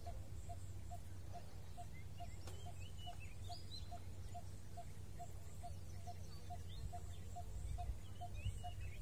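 Riverside ambience: a short call repeated evenly about twice a second, and a few scattered bird chirps, over a steady low rumble.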